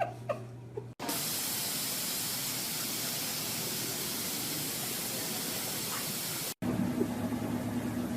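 A steady, even hiss that starts and stops abruptly and lasts about five and a half seconds, followed by a low steady hum with a few clicks.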